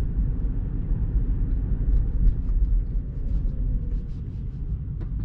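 Low, steady road and tyre rumble of a Tesla rolling slowly down a city street. A faint falling whine comes in about three seconds in as the car slows.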